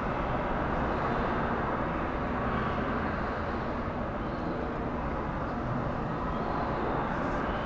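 Steady, even rumbling background noise of a large exhibition hall, with no distinct events.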